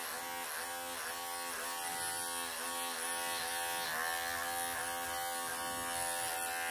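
Electric pet grooming clippers running while shaving a longhaired cat's damp fur, a steady buzzing hum whose pitch dips briefly and recovers over and over as the blades work through the coat.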